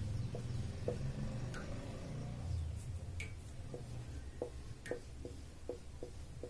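Whiteboard marker writing on a whiteboard: a string of short, irregular ticks and light squeaks as letters are drawn, coming more often in the last couple of seconds.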